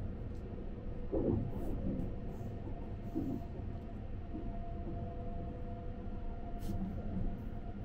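A Sunrise Express 285-series electric sleeper train running, heard inside its compartment: a steady low rumble with a steady hum. There are a few light clicks of a wooden spoon in a wooden bento box.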